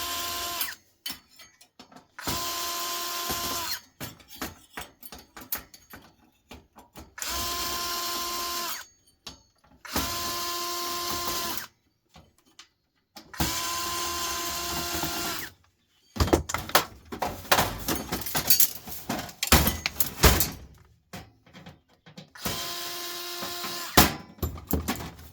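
A power screwdriver runs in six short bursts of about one and a half to two seconds each, with a steady whine, backing out screws. Between the bursts come small clicks and rattles of screws and metal parts. A stretch of loud clattering and knocking runs from about sixteen to twenty-two seconds in.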